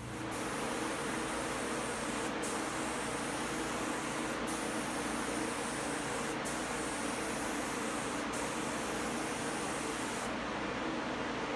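Spray gun hissing as it lays down vinyl sanding sealer on a panel, with a brief break about every two seconds, and the hiss stops shortly before the end. A steady fan hum runs underneath.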